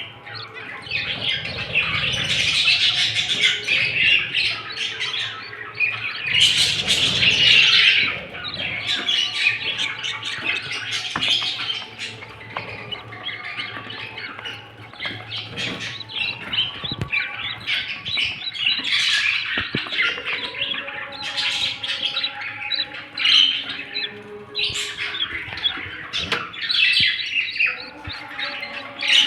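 Budgerigars chattering and squawking continuously, with louder flurries of harsh calls.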